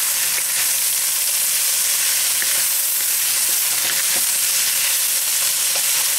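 Chicken chunks, onions and garlic sizzling steadily in oil in a heavy carbon steel wok, with a bamboo spatula stirring and lightly scraping and tapping against the pan.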